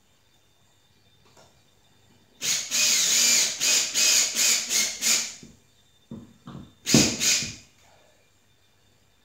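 Cordless drill driving a fastener into a plaster ceiling: about three seconds of motor whine starting a couple of seconds in, rising and falling and breaking into short pulses as it bites, followed by a few sharp knocks.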